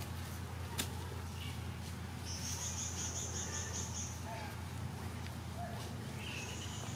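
Forest ambience: an insect trilling high-pitched in pulsing bursts of a second or two, over a steady low hum, with one sharp click a little under a second in.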